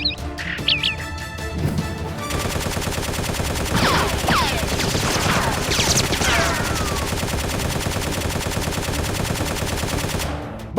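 Rapid automatic gunfire, dubbed in as a sound effect for the blaster fight, starting about two seconds in and stopping shortly before the end, with a few falling whines in the middle.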